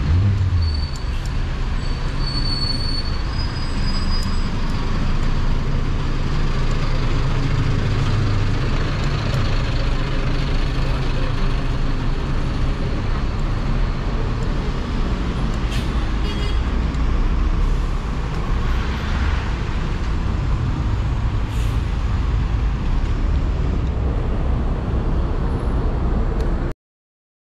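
City street traffic: a steady rumble of passing vehicles, a city bus among them, that cuts off abruptly near the end.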